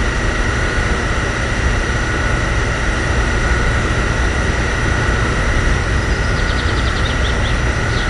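A motor running steadily, with a low rumble under two constant high whining tones. Faint rapid ticking comes in high up near the end.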